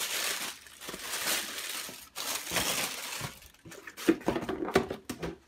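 Tissue paper rustling and crinkling as shoes are pulled out of a shoebox, followed in the second half by a series of short knocks and taps from the cardboard shoebox being handled and set aside.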